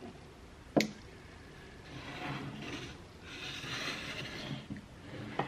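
An old wooden hand plane being handled on a workbench: a sharp wooden knock about a second in, then two stretches of scraping and rustling as it is moved about, and another knock near the end.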